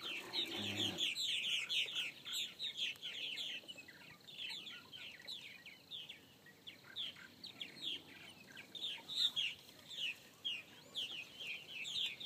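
A flock of purple martins calling in flight: a dense chatter of short, falling chirps, thickest at the start and again near the end.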